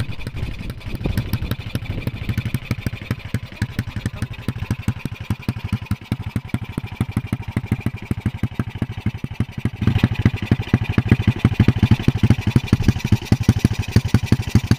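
Small motorcycle engine running as the bike is ridden over a rough dirt track, heard from on board: a fast, even train of exhaust pulses that grows louder about ten seconds in.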